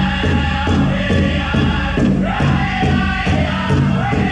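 Powwow drum struck in an even beat, about three strokes a second, under a group of voices singing a chant.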